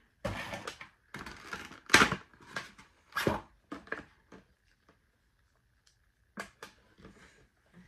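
Clear plastic blister packaging crackling and clicking in short irregular bursts as a figure is worked out of it. A brief pause follows, then a few light clicks near the end.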